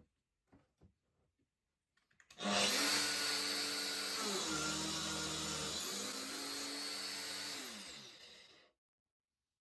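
Angle grinder motor switching on with a high whine. About two seconds in, its pitch dips for about a second and a half as it takes a load, then comes back up. It winds down after being switched off. A few faint ticks come before it starts.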